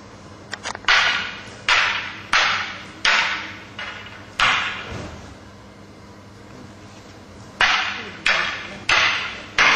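Wooden aikido practice weapons striking each other in a paired drill: sharp clacks about two thirds of a second apart, each ringing briefly in the hall. Six come in a row, then a pause of about three seconds, then four more.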